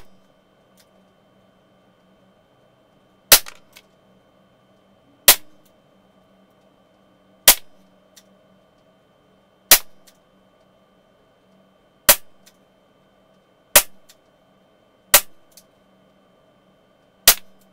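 Umarex Smith & Wesson 586 CO2 pellet revolver with a 6-inch barrel firing eight shots, one about every two seconds, each a sharp crack with a short tail.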